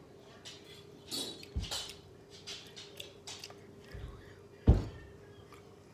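Scattered light knocks and rustles, with one loud thump about three-quarters of the way through, over a faint steady hum.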